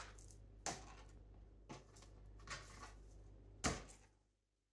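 Light knocks and scrapes of a knife and fish fillet being worked on a plastic chopping board, four short knocks with the loudest one sharp near the end, over a low steady hum.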